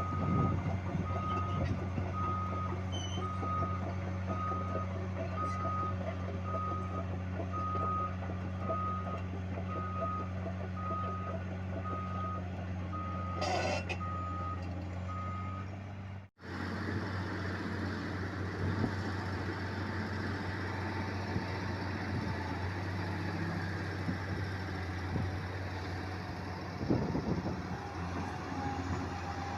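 A heavy diesel machine running steadily while its reversing/travel alarm beeps a little over once a second. The beeping stops abruptly at a cut about halfway through, and the engine keeps running without it.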